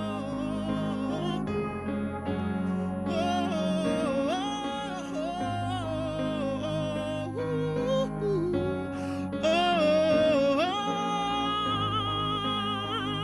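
Worship music: sustained accompaniment chords with a wordless, wavering melodic lead line with vibrato, sung or played in a gliding, ad-lib style.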